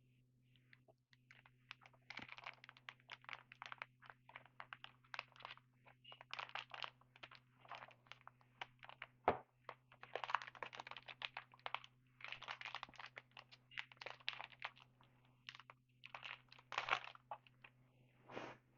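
A trading-card pack's wrapper crinkling and cards being handled, slid and flicked against each other: a dense run of crackles and clicks in bursts, with one sharper knock about nine seconds in.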